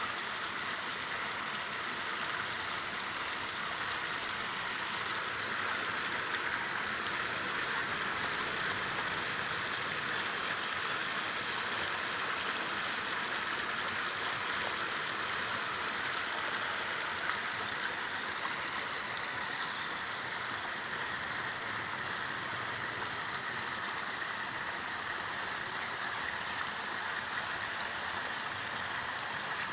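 Steady wash of water noise, an even hiss with no distinct splashes or drops standing out.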